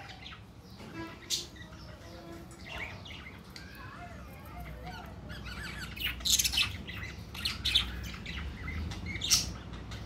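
Budgerigars chirping and squawking, many short calls one after another, with the louder, sharper calls in the second half.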